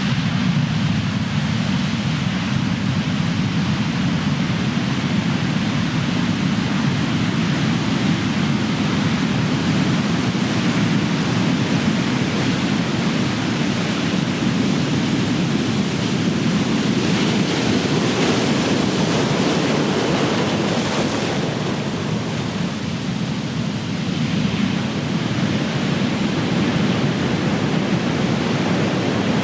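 Big ocean waves breaking and washing up the shore, a continuous surf roar with a brighter hissing surge of foam about two-thirds of the way through.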